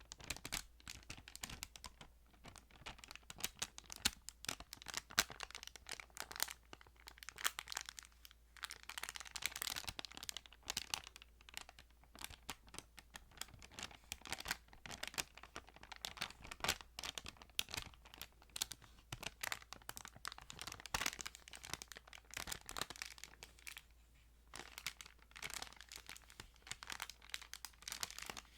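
Thin Bible pages being handled and turned by hand, rustling and crinkling in a continuous run of small crackles.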